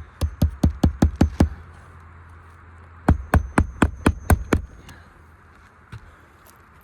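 Hammer driving nails into roof shingles: two quick runs of about seven sharp blows each, with a pause of about a second and a half between them.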